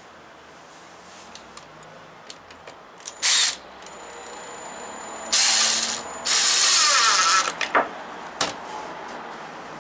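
AEG cordless driver running in bursts as it drives screws into a timber sleeper: one short burst about three seconds in, then two longer runs between about five and seven and a half seconds.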